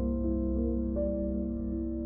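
Slow instrumental background music with long held notes, a new note coming in about a second in.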